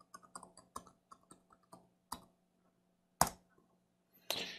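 Typing on a computer keyboard: a quick run of key clicks for about two seconds, then a single louder key press about three seconds in, as the command is entered. A short hiss near the end.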